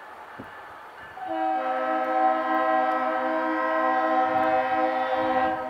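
New England Central freight locomotive's multi-chime air horn sounding one long blast, a steady chord of several notes. It starts a little over a second in and cuts off just before the end.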